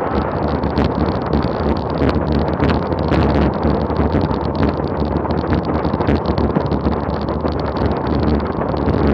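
Loud, steady wind rush over the microphone of a road bike descending at about 38 mph, mixed with road and tyre noise, with scattered small clicks and rattles.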